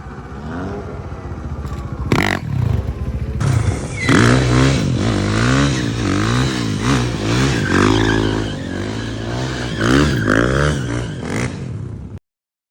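KTM supermoto motorcycle engine revving, its pitch climbing and falling again about once a second. There is a sharp clatter about two seconds in, and the sound cuts off abruptly near the end.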